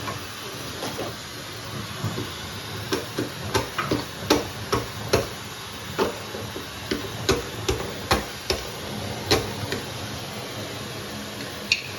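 Steady hiss of a hair dryer blowing, with a series of irregular sharp knocks and taps of hard objects from about a second in until near the end.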